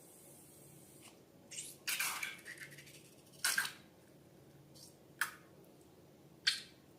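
Sticky, wet squishes and pops of slime being handled, in short separate bursts, the longest about two seconds in.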